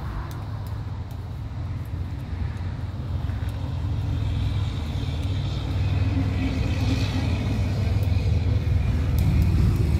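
Distant rumble of a SpaceX Falcon Heavy rocket's engines in ascent, a deep continuous roar that grows steadily louder.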